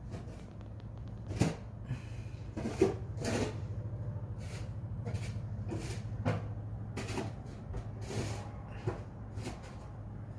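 Irregular knocks and rustles, about nine in all, over a steady low hum, the strongest about a second and a half and three seconds in.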